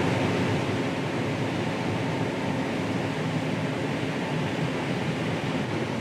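Combine harvester running steadily while harvesting corn, heard from inside the cab as an even machinery hum.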